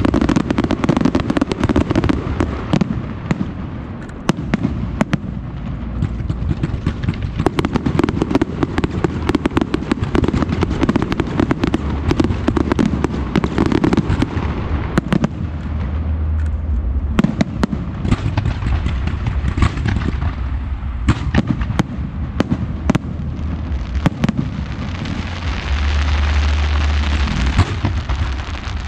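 Fireworks show: aerial shells bursting overhead in quick succession, a dense unbroken run of bangs and crackles, with a hissing crackle swelling near the end.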